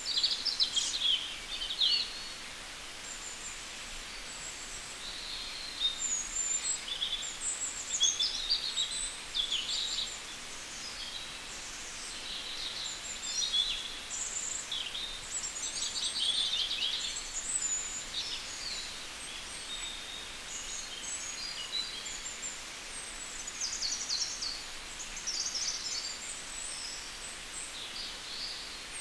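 Small birds chirping, many quick high calls one after another, over a steady faint background noise.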